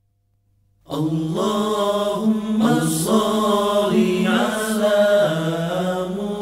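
Near silence for about the first second, then a voice chanting an Islamic devotional song (sholawat), starting suddenly and continuing steadily.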